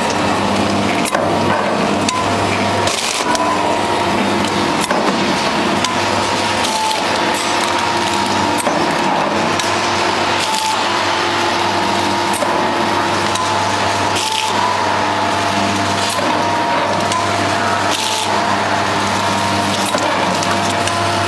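Powder packing machine running: a steady mechanical hum with several held tones, small clicks, and a louder sharp clattering burst about every four seconds as it cycles.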